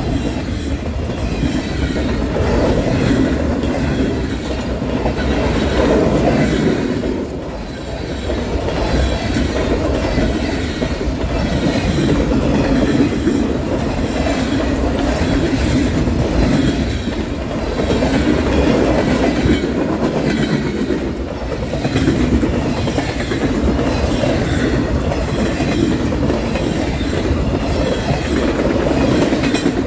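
Freight train of loaded flatcars rolling past close by: a steady rumble of steel wheels on the rails, with repeated wheel clicks and gentle swells as the cars go by.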